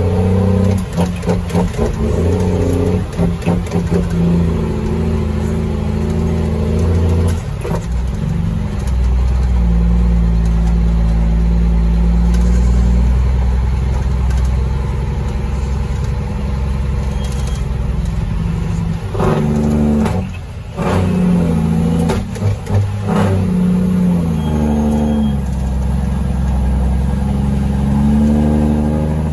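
Cummins M11 Select Plus straight-six diesel in a Freightliner FLD, heard from inside the cab, pulling under load through the gears of its 18-speed transmission. The engine note holds, falls away briefly as a gear is changed about two-thirds of the way through, then climbs again as it accelerates.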